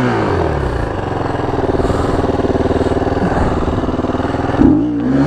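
KTM 350 EXC-F dirt bike's single-cylinder four-stroke engine being revved while the bike is stuck in mud. The revs drop away at the start, hold steady, then rise and fall again near the end.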